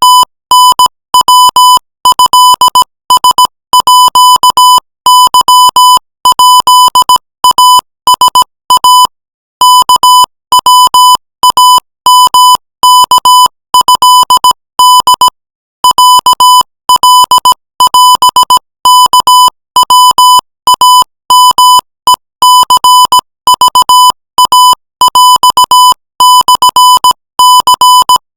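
Morse code at 20 words per minute: a single high beep tone keyed on and off in quick short and long elements, spelling out Thai text. Short pauses fall between letters, and longer ones about 9 and 15 seconds in.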